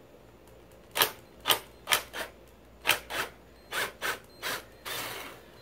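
Ryobi cordless drill-driver with a small Phillips bit working tiny screws out of a plastic gearbox housing in short spurts: about eight brief, sharp bursts, then a longer one near the end. The bit is slipping in the small screw heads, which are close to stripping.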